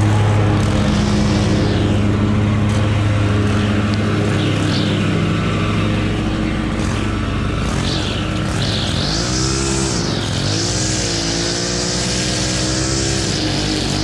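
Stihl FS 91 R string trimmer's small 4-MIX engine running at high speed while trimming grass along brick edging. In the second half its pitch dips and recovers several times as the line bites into the grass.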